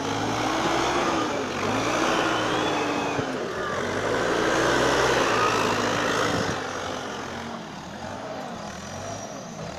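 Bobcat TL470 telehandler's engine working under load while it loads manure, its pitch rising and falling over and over as the engine revs up and eases off. It is louder for the first two-thirds and settles lower near the end.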